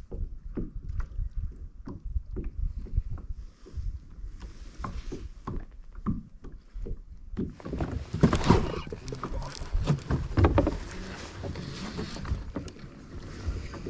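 Water lapping against a plastic fishing kayak's hull in quick, repeated low slaps, giving way about halfway through to louder sloshing and splashing.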